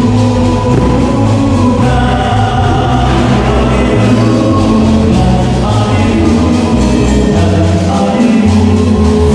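A church hymn sung by a choir with amplified band accompaniment, loud and continuous, with a deep bass line under the voices.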